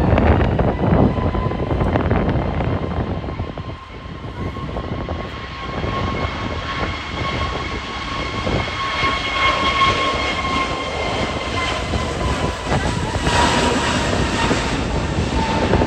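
Jet engines of an Airbus A320neo (CFM LEAP-1A turbofans) running with a steady whine that eases slightly in pitch near the end. Gusty wind buffets the microphone with a heavy rumble. The jet noise swells about 13 seconds in.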